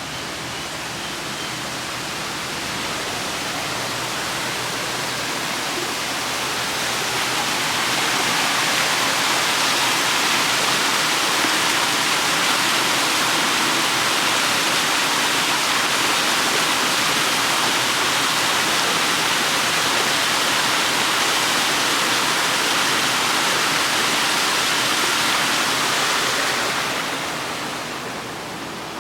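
Rushing water of a stream: a steady hiss that grows louder over the first several seconds, holds, and fades away near the end.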